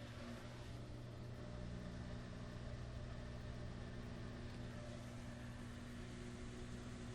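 Samsung WD136 front-load washer-dryer running steadily through its cycle: an even motor hum with a low rumble from the drum.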